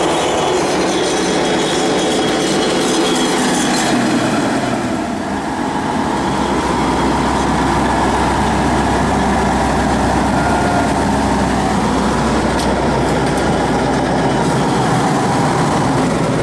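Rostselmash combine harvester running close by: a loud, steady engine and machinery noise. A deep hum comes in about six seconds in.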